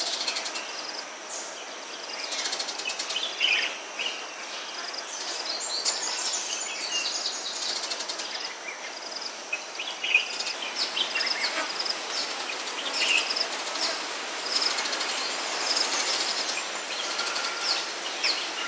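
Forest ambience: many birds chirping and calling in short overlapping bursts over a steady high hiss.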